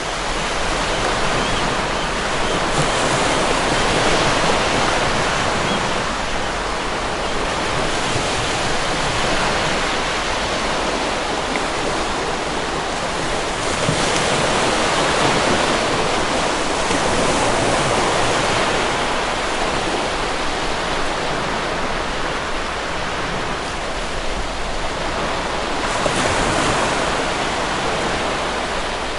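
Ocean surf: a steady wash of breaking waves, swelling and easing every few seconds.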